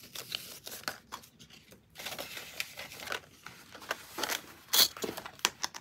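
Paper banknotes rustling and a clear plastic binder pocket crinkling as bills are handled and slid into it, with scattered small ticks and taps.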